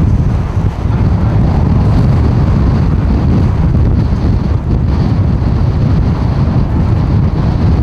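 Hurricane-force wind buffeting the camera microphone: a loud, steady rumbling rush, heaviest in the low end.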